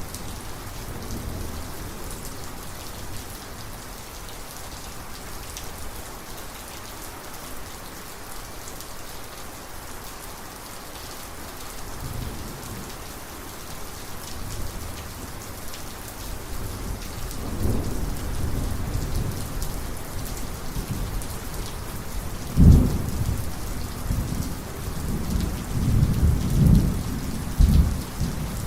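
Heavy steady rain with rolling thunder. The thunder rumbles in and builds from about halfway through, with a sharp loud crack about three-quarters of the way in and several more strong rumbles near the end.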